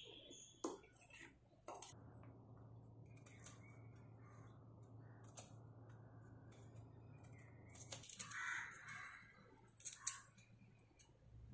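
Faint kitchen handling sounds: a spoon clicking in a steel bowl at the start, then a vegetable peeler scraping the skin off a raw beetroot, with a few louder sounds about eight and ten seconds in.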